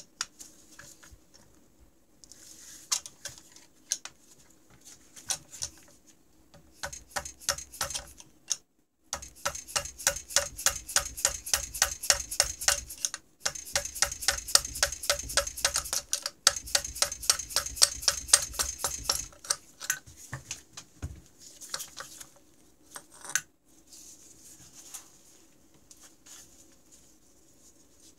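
Rapid, regular metallic clicking in long runs with short breaks, loudest in the middle, as a piston is worked off its connecting rod on a two-stroke snowmobile engine. A few scattered clicks and knocks come before and after.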